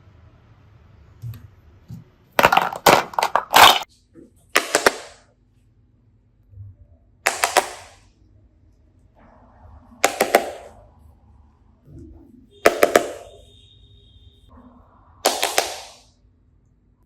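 Slime being pressed and squished in short bursts of crackling and popping, about every two to three seconds, with several quick bursts close together near the start.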